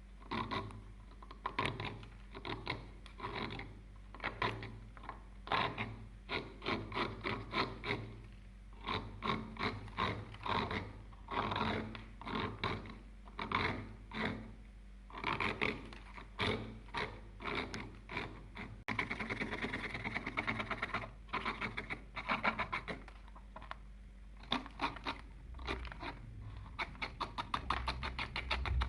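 Repeated hand scraping strokes on rusty metal, about one to two a second, as rust is worked off the tool. About two-thirds of the way through, the strokes turn faster and denser, into a steady scrubbing.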